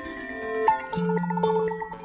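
Background music: a melody of held notes, with a new note every half second or so.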